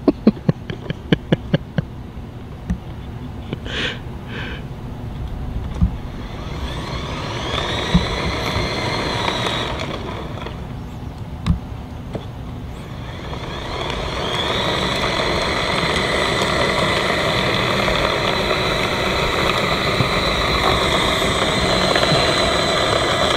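Electric wheel-drive motor and gears of a Hart 40V self-propelled lawn mower whining as it carries a rider, over a low rumble. The whine rises in pitch about seven seconds in, holds, fades near ten seconds, then rises again around fourteen seconds and stays steady. A quick run of clicks comes in the first two seconds.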